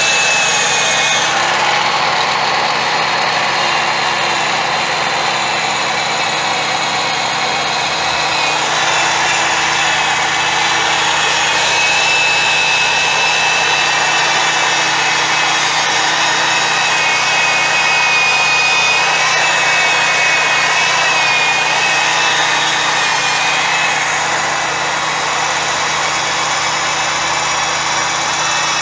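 An old electric drill spinning a foam polishing pad at high speed, buffing cut polish on a plastic headlight lens, with a steady motor whine that wavers slightly in pitch. It is run with light pressure to keep the RPMs up.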